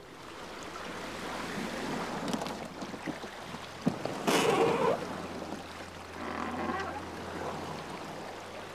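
Water sloshing and splashing around a canoe as it is pushed with a paddle through a shallow, weedy channel. A sharp knock just before four seconds in is followed by a louder splash.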